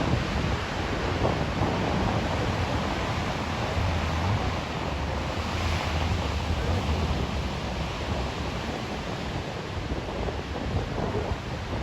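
Big Atlantic surf rushing and breaking, with wind buffeting the microphone as a low rumble; the hiss of the surf swells briefly about halfway through.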